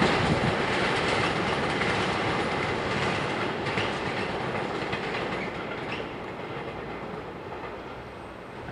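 Freight train wagons rolling past, wheels clattering over the rail joints, the sound fading steadily as the train moves away.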